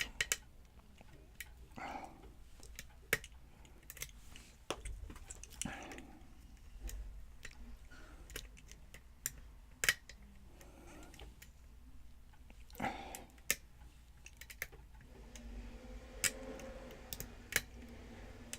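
Lock picks working inside a pin-tumbler challenge lock: irregular light metallic clicks and ticks as the pins are set and the tension wrench shifts, with the lock still unopened.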